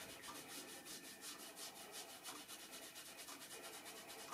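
Faint, rapid strokes of a damp sponge rubbing over unfired porcelain clay, washing away the surface wherever no shellac resist protects it.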